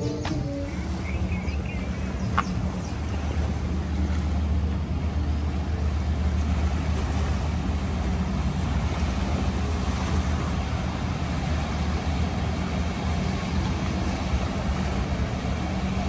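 A large engine running steadily, heard as a low, even hum.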